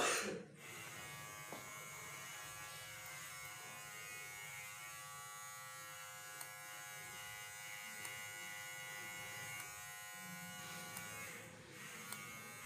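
A small electric motor buzzing steadily at an even pitch, like a hair clipper or trimmer running, fading briefly near the end.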